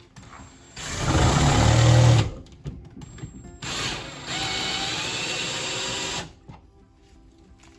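A power drill running in two bursts, about a second and a half and then two and a half seconds long, while the IKEA cabinet units are drilled and screwed down, over quiet background music.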